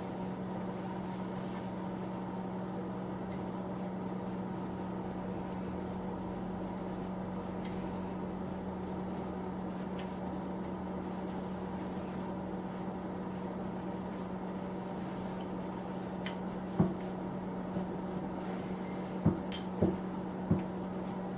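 Small electric space heater running with a steady hum. About four sharp knocks come in the last few seconds.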